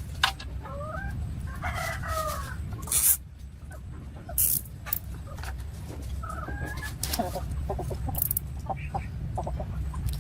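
Chickens clucking and calling a few times, with several sharp knocks and a steady low rumble underneath.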